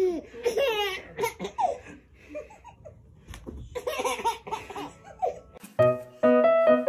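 A baby laughing in bursts of giggles, with a pause of about two seconds in the middle. Near the end, piano music starts.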